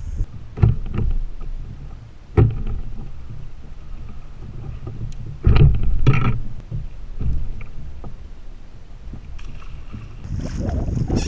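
Water sloshing against a plastic kayak hull, with several sharp knocks of gear and movement against the hull. The loudest knocks come in a cluster about halfway through.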